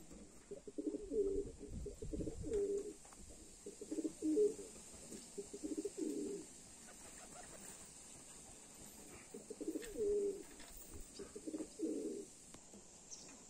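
Domestic pigeons cooing in repeated low phrases, a run of coos, a pause of about three seconds, then more coos.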